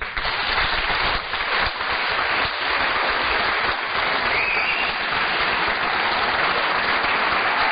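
Studio audience applauding steadily, breaking out suddenly.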